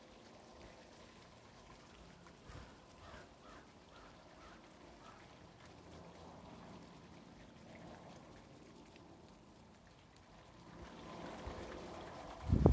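Rainwater trickling and pattering down a 3D-printed acorn-cup rain chain in falling rain, a faint steady sound. Near the end it grows louder and wind starts buffeting the microphone.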